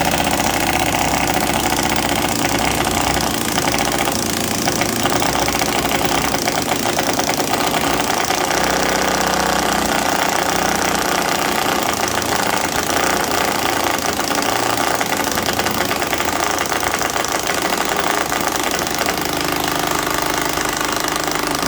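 Cordless impact driver hammering steadily on a door-hinge screw for about twenty seconds, then stopping suddenly. The screw will not drive in.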